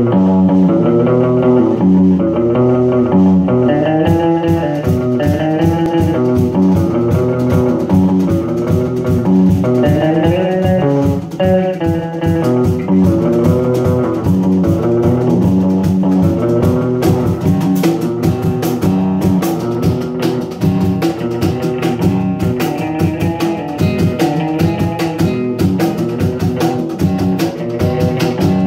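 A small band playing live: electric guitars strumming and picking a repeating rock riff over a bass line, with percussion strokes coming in about four seconds in.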